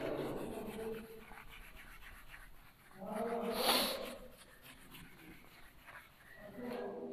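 Whiteboard duster rubbing across the board in short strokes, with a short animal cry about three and a half seconds in and another near the end.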